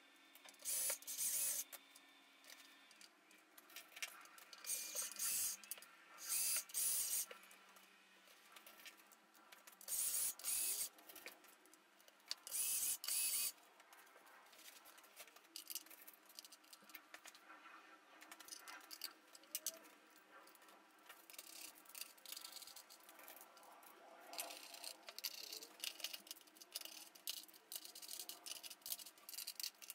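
Handling noises of hand assembly: small metal fixings and steel angle brackets clinking and scraping against a laminated board in short bursts, then a run of small clicks as screws are turned in with a hand screwdriver near the end.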